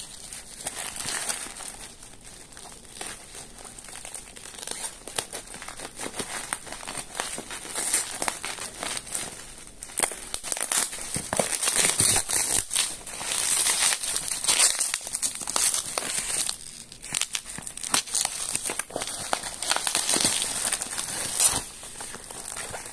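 Plastic bubble wrap crinkling and rustling as it is pulled by hand off a cardboard box, in irregular crackly handling noise.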